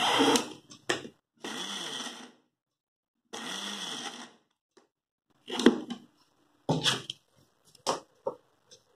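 Electric mixer-grinder pulsed twice, two short runs of about a second each, briefly spinning ragi puttu flour with jaggery so that it mixes without being ground fine. A few sharp knocks and clatter of the steel jar follow.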